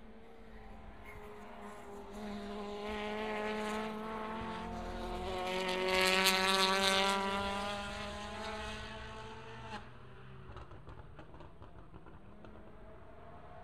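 A WTCC touring race car's 1.6-litre turbocharged engine driving through the S-bend at speed, growing louder to a peak about halfway through as it passes close, its note easing slightly lower. The engine note cuts off sharply about two-thirds of the way in, and near the end a second car's engine is heard faintly, rising in pitch.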